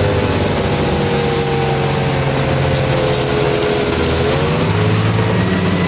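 Motorboat engine pulling a tube at speed, its pitch sagging slightly and then rising again about four seconds in, over a steady rush of wind and churning wake water.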